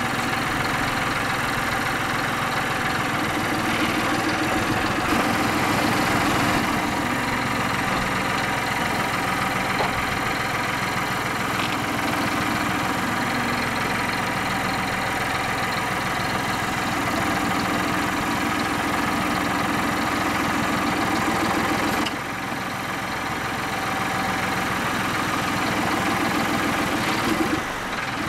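Farm tractor's diesel engine running steadily while its front-loader hydraulics work a grapple to pick up and lift a log. The sound dips briefly twice, about two-thirds of the way through and again near the end.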